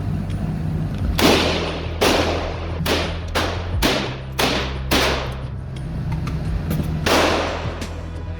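Gunshots echoing in an indoor shooting range: about eight shots at uneven spacing, most in quick succession through the first half and one more near the end, each followed by a short reverberant tail.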